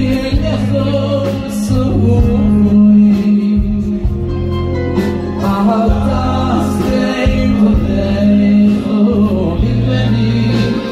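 Men singing a Hasidic song into microphones, amplified, over live band accompaniment with sustained bass notes.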